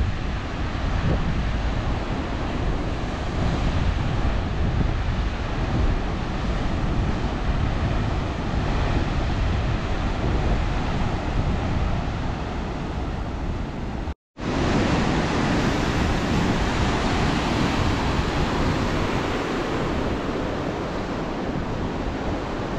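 Rough Indian Ocean surf breaking on a rocky shore, a steady rush of waves with wind on the microphone. The sound cuts out for a moment about fourteen seconds in, then the surf goes on.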